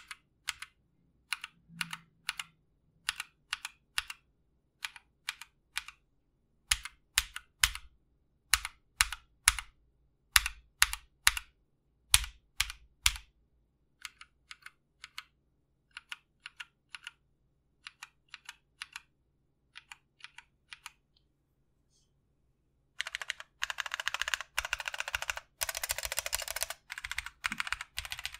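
Mechanical keyboard with lubed Feker "Holy Panda" clone tactile switches, a polycarbonate plate and a Tofu65 aluminum case, being typed on. First come single key presses, each a press-and-release clack, some of them deeper. Then fainter single presses, a brief pause, and fast continuous typing from about 23 seconds in.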